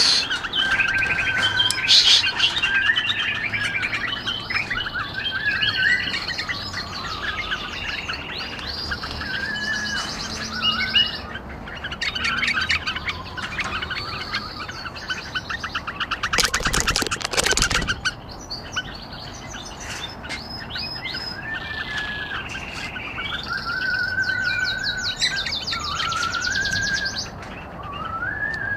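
Bulbuls chirping and whistling: several short, varied phrases overlap throughout. About two-thirds of the way through comes a brief, loud rattle of rapid clicks lasting about a second and a half.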